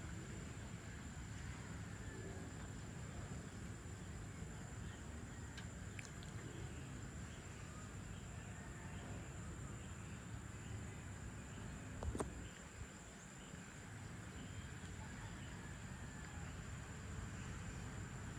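Evening outdoor ambience: a steady high-pitched chorus of crickets and other insects over a low rumble, with faint scattered chirps. A single sharp click about twelve seconds in.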